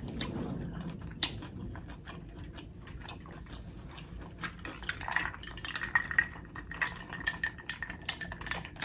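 Cutlery clinking and scraping on a plate of food, many light clicks that come more often in the second half.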